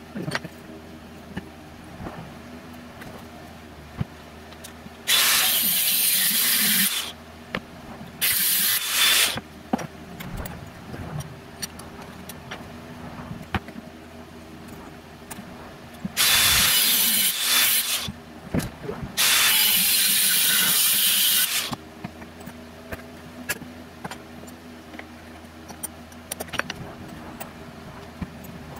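Angle grinder cutting square steel tubing, in four bursts of one to two and a half seconds each, with small clanks of metal on the steel table between the cuts.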